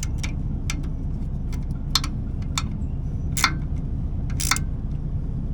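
Scattered sharp metallic clicks and light clinks of a wrench and fasteners as parts are fitted and snugged up on trailer suspension hardware, over a steady low hum.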